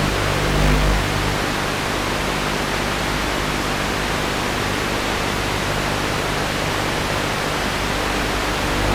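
Steady, even static hiss from a spy camera's audio feed, with no recognisable sound coming through it.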